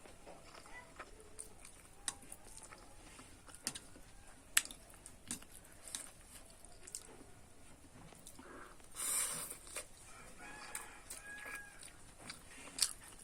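Quiet eating sounds: scattered clicks of a utensil against a bowl and a louder slurp of noodles about nine seconds in. A few faint short calls sound in the background near the end.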